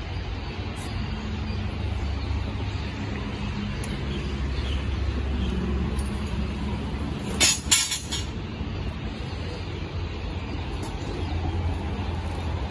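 Honda MSX 125's single-cylinder four-stroke engine idling steadily with a low rumble. A little past halfway there is a brief, loud hissing burst.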